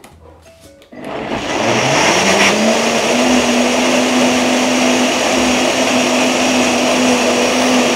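Countertop blender starting up about a second in, its motor whine rising in pitch over a couple of seconds and then running loud and steady as it purees mango chunks with water into juice.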